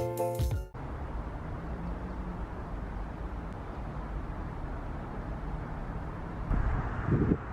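Keyboard background music cuts off just under a second in, leaving steady outdoor ambience: a low, even rumble like distant city traffic. Wind buffets the microphone near the end.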